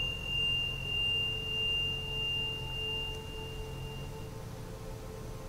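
A single high, pure chime tone rings on and dies away about four seconds in, over a soft, steady low drone.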